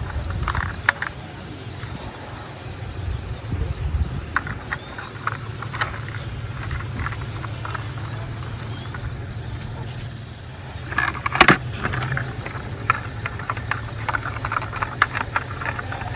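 Scattered light clicks and clinks of small toy cars being handled, over a steady low hum, with a sharp cluster of louder knocks about eleven seconds in.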